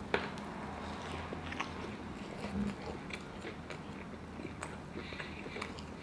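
A person biting into and chewing a crispy fried chicken sandwich, with faint crunching and wet mouth sounds and a sharper click near the start.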